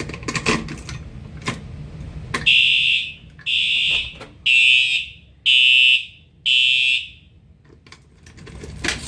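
A few clicks and knocks, then a fire alarm horn strobe sounds five short, even blasts about a second apart. In walk test the system pulses the horn to tap out the number of the device that was just set off, here a pull station.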